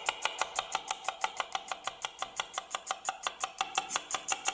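A kitchen knife rapidly slicing a red onion on a cutting board: quick, even chops against the board, about six or seven a second.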